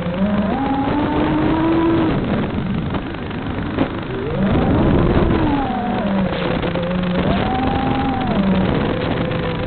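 Small motor of a radio-controlled aircraft running, its pitch rising and falling again and again as the throttle is worked, over heavy wind noise on the microphone. A single sharp click sounds just before the four-second mark.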